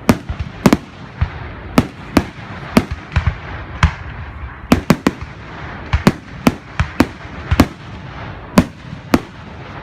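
Fireworks going off: a string of sharp bangs at irregular intervals, sometimes two in quick succession, over a steady hiss.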